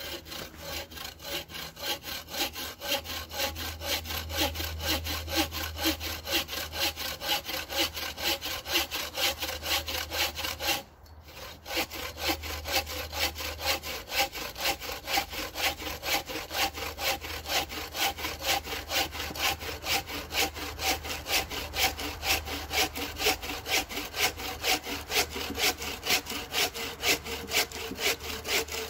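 Bow saw cutting through a log in steady back-and-forth strokes, roughly two to three a second, with a short pause about eleven seconds in.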